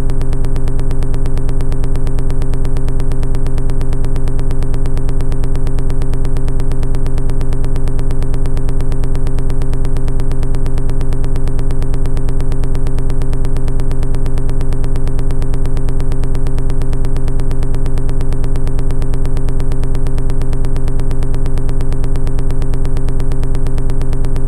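A loud, unchanging electronic buzzing drone, held at one pitch.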